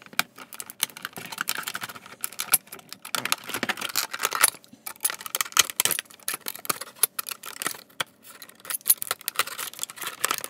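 Snap-off utility knife cutting into a clear plastic blister pack, the stiff plastic crackling and clicking in a rapid, irregular run as it is cut and handled.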